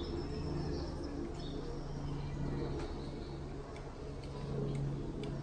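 Outdoor ambience: faint bird chirps over a low, steady hum, with a few light clicks in the second half.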